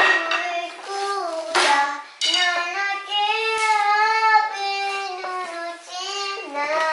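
A young girl singing in a high child's voice, holding long, slightly wavering notes through the middle.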